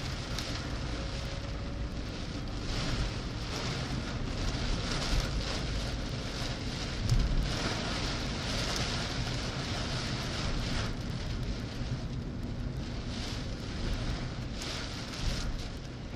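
Heavy rain hitting a car's windshield, heard from inside the moving car, with the steady low rumble of the engine and tyres on the wet road underneath.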